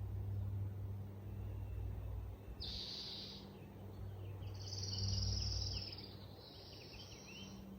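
Forest ambience: a steady low outdoor rumble, with high chirping and trilling bird calls coming in about three seconds in and again from about five seconds in.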